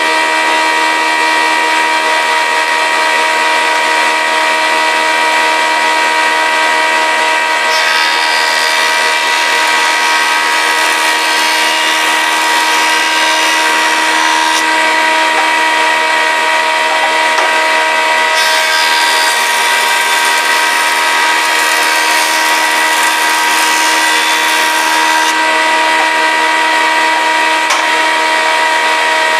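Surface planer running at full speed, its four-knife cutter block turning at 4,200 rpm with a steady whine, while a rough-sawn board is pushed over the cutters and planed flat. The hiss of the cut changes several times as the board is fed through in passes.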